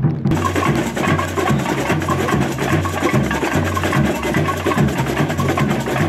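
Samba bateria playing: surdo bass drums beat a steady pulse under dense snare, shaker and tamborim rhythm, with the high rattling percussion coming in a moment after the start.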